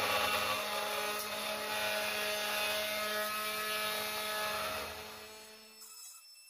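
Small CNC router spindle motor whining steadily while a 3 mm HSS four-flute end mill cuts aluminium. The sound fades out about five to six seconds in.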